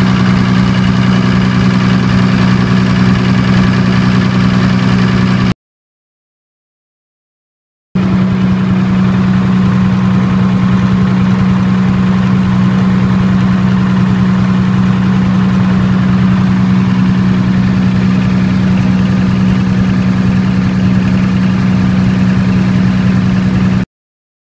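30 kW military diesel generator running steadily on diesel only: a constant engine drone with a strong low hum. The sound cuts off abruptly about five and a half seconds in, returns about two seconds later, and cuts off again just before the end.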